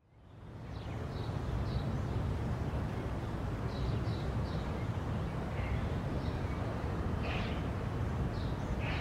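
Outdoor ambience fading in over the first second: a steady low rumble with small birds chirping, short high chirps in twos and threes scattered throughout.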